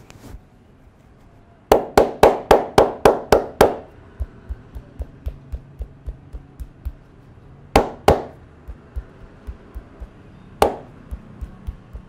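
Hand strikes of a head-and-neck massage. A quick run of about eight loud slaps comes about two seconds in, followed by lighter, even taps about three a second. Two more loud slaps come around eight seconds in and one more a little before the end.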